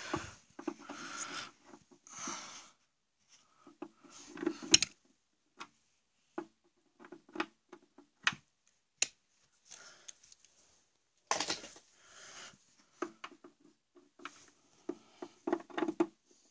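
Handling noise: scattered plastic clicks and knocks with short rustles as a mains plug is pushed and fumbled at a wall socket and won't go in, its pins still covered by a protective cap. The loudest is a single sharp knock about five seconds in.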